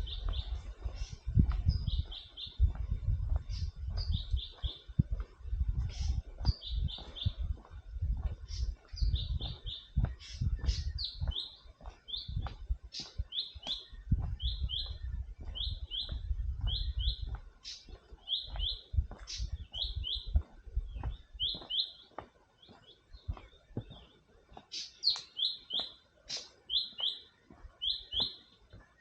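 A bird calling over and over: short, high, downward-slurred notes, often in quick pairs, about one a second. A low, uneven rumble sits under the calls for the first half and fades out after about seventeen seconds.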